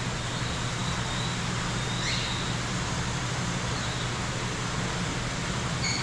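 Steady background noise with a low hum, and a faint short high chirp about two seconds in.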